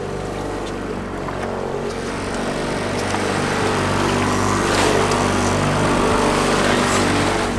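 Boat motor running steadily. Over it, water splashing grows louder from about halfway through as a king salmon thrashes at the surface and is scooped into a landing net, with one sharper splash near the middle.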